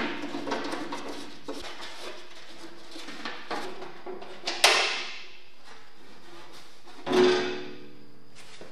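Rusty steel smoker firebox parts being handled: light scraping and rattling of metal, then two sharp clanks of steel on steel, about four and a half and seven seconds in, each ringing out briefly.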